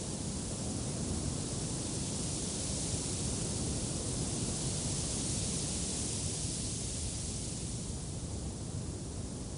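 Steady wind blowing, a broad rushing noise with a low rumble that swells and eases over a few seconds.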